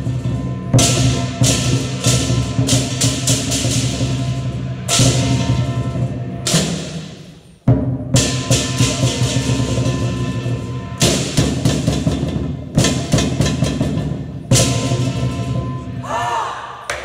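Lion dance percussion: a big lion drum beating with clashing cymbals and a gong ringing under it. About seven seconds in it fades right away, then starts again at once.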